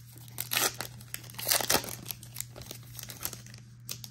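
Plastic foil trading-card pack wrapper crinkling and tearing as it is pulled open by hand, in irregular bursts.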